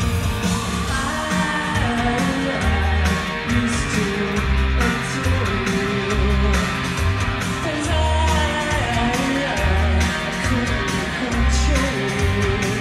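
Live rock band playing: a woman's lead vocal sung into a microphone over electric guitars, bass and drums, with a heavy, pulsing bass line.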